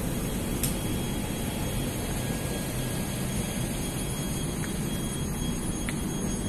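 Steady low rumble and hum of an intercity passenger train standing at a station platform, with a faint click about half a second in.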